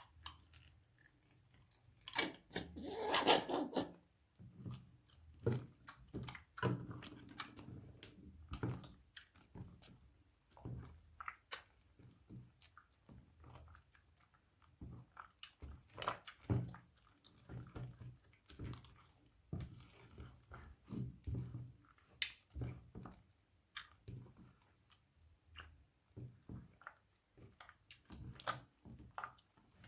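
Slime being squished and worked by hand: irregular wet clicks, pops and crackles, with a louder, denser run of crackling about three seconds in.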